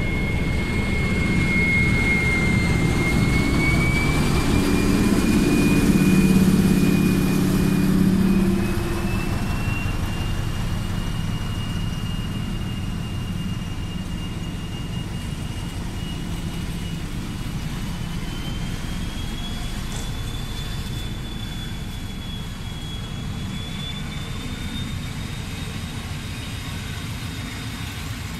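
SM42 diesel-electric locomotive working under power as it pulls the train away. Its engine is loudest in the first several seconds and then fades as the coaches roll past. A thin high whine climbs steadily in pitch throughout as the train gathers speed.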